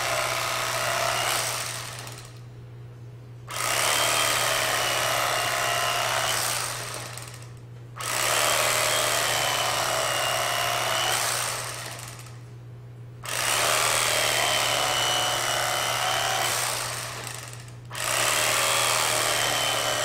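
Electric carving knife sawing through a smoked brisket, switched on and off: it runs about four seconds at a time, with short stops between.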